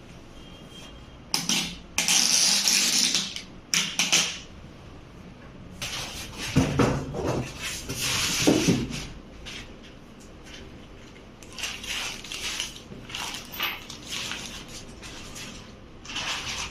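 A plastic sticker film being peeled off an LED TV screen: a run of ripping, crackling bursts, followed by lighter plastic rustling in the second half.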